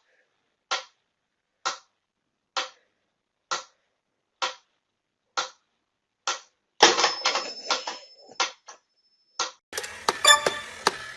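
Sharp, evenly spaced ticks, about one a second, seven times. Then a longer rustling clatter with a faint steady high tone, and quick clicking near the end.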